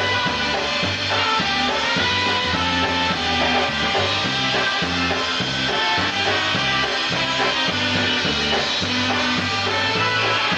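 Live polka band playing an instrumental passage over a steady, bouncing bass on the beat.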